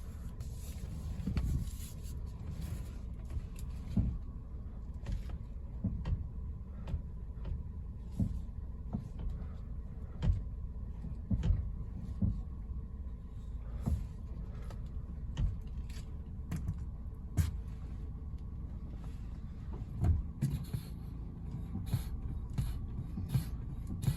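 Car running with a steady low rumble while its steering is turned left, and irregular sharp clicks and knocks coming from the steering every half second to two seconds.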